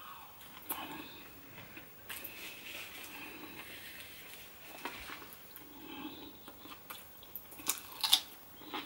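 A person chewing fried calamari, quietly, with a few sharper clicks near the end.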